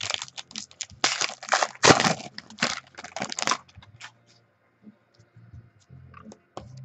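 A trading card pack wrapper being torn open and crinkled by hand: a rapid run of crackles for about three and a half seconds, then only faint handling of the cards.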